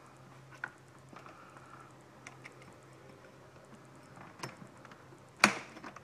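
Light clicks and clinks of a chainsaw chain being worked off its guide bar by hand, with one sharper click about five seconds in.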